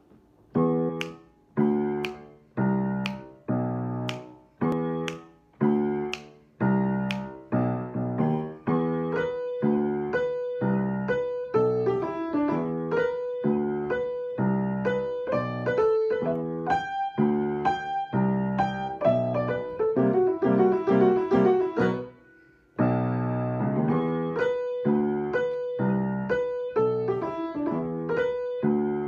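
Solo piano playing. It opens with short detached chords, about one every 0.8 s for the first eight seconds, then moves into a flowing melody over chords, with a brief pause about 22 seconds in.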